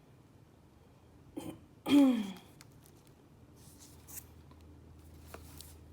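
A short, loud non-speech vocal sound from a woman about two seconds in, falling in pitch, preceded by a brief softer one. A few faint clicks follow.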